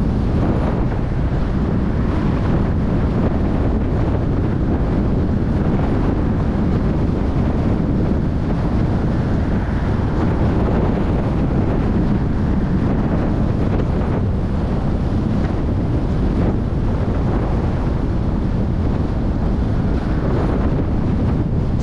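Steady wind rushing over the microphone, mixed with the road and tyre noise of a car driving along.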